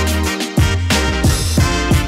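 Background music with a steady beat and a heavy bass line.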